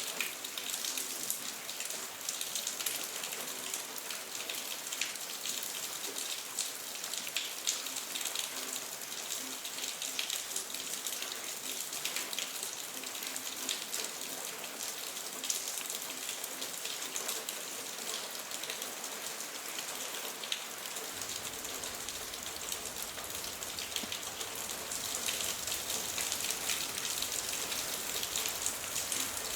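Steady rain falling on hard surfaces, a dense patter of drops over a hiss. A low rumble joins about two-thirds of the way through, and the rain grows a little louder near the end.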